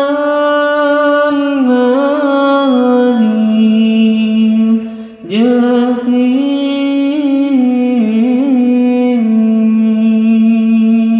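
A singer's voice chanting slow, long-held notes with small ornamental turns, in two long phrases with a breath about five seconds in. It is sung into a microphone and played back through an amplifier and speakers during a sound check.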